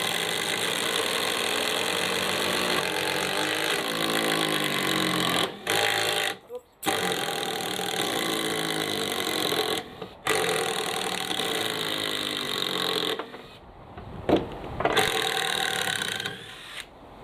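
Two cordless impact drivers running at once, driving screws into timber: motors whining and hammering, with short pauses between screws and the run petering out near the end.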